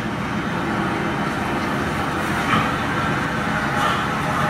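Steady outdoor street ambience with a low, even traffic rumble.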